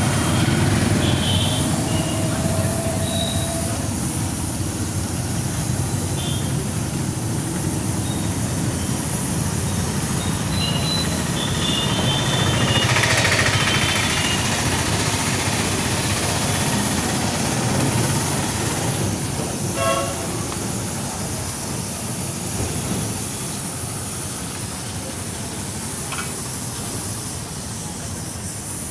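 Steady rumble of passing traffic, with a few short horn toots and high beeps.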